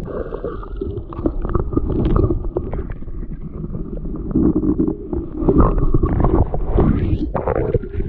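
Muffled, low swamp-water noise with irregular knocks and handling sounds: the camera is submerged in murky swamp water and being moved about, so the sound is heard underwater.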